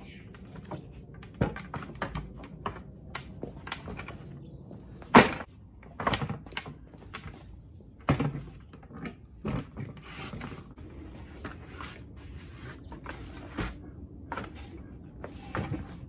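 Irregular knocks, clicks and clunks from objects being handled, the loudest about five seconds in.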